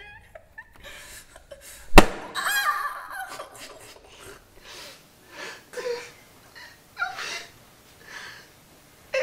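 A single sharp crack about two seconds in, followed by a brief wavering voice, then a young man's stifled laughter: short breathy snickers and gasps.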